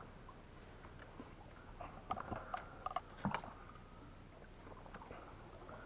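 Faint knocks and clicks in a wooden dugout canoe: a scattered cluster about two to three and a half seconds in, with one louder thump among them.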